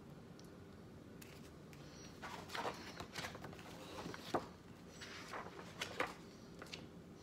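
Pages of a picture book being turned and handled: faint, irregular paper rustles and flicks, with a few light taps, over a faint steady hum.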